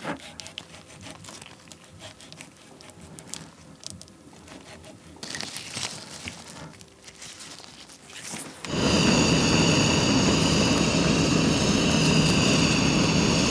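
Faint knife and handling sounds as raw salmon is scored and pressed onto sushi rice. About nine seconds in, a handheld kitchen blowtorch flares up and runs with a loud, steady hiss, searing the salmon on the nigiri.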